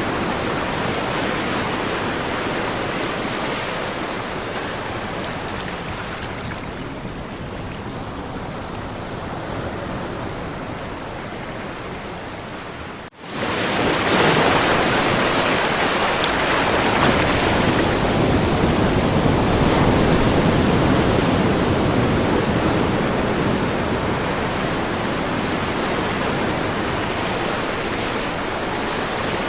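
Ocean surf washing steadily. About thirteen seconds in it cuts out for a moment and comes back louder.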